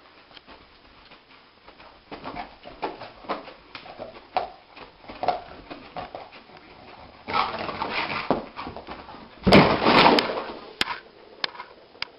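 A dog dreaming in its sleep, giving many short whimpers and muffled yips while its legs paddle. Two louder noisy stretches come midway and about ten seconds in, the second the loudest, as it thrashes and scrambles to its feet, followed by a few sharp clicks.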